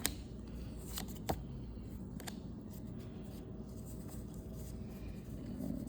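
Pokémon trading cards being handled and flipped through, giving a few sharp clicks and flicks over a steady low hum.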